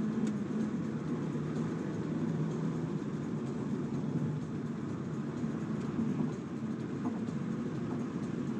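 Steady road and engine rumble of a car being driven, heard from inside the cabin.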